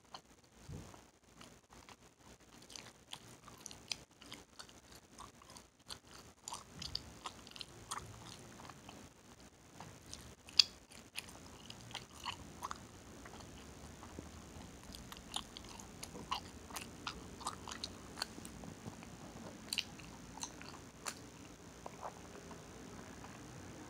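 Close-up chewing and smacking of Hubba Bubba bubble gum: irregular mouth smacks and clicks, with one much louder sharp crack of the gum about ten and a half seconds in.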